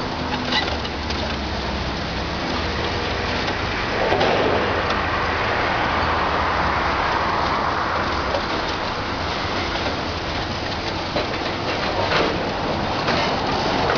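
High-reach demolition excavator's diesel engine running under a steady patter and rumble of crushed concrete and rubble falling from the building, with a louder burst about four seconds in.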